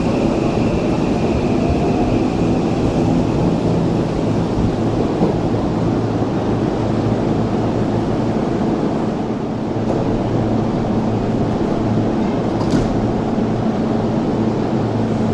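Steady hum of an electric commuter train standing at a station platform, its air conditioning and auxiliary equipment running, with a single short click about three-quarters of the way through.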